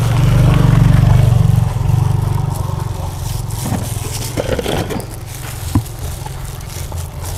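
A motor vehicle's engine running, loudest about a second in and then fading away, with a few light knocks around the middle.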